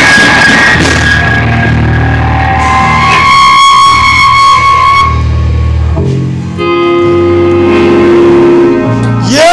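Live rock band playing, with guitar chords held over a heavy bass, and a new sustained note sliding up into place near the end.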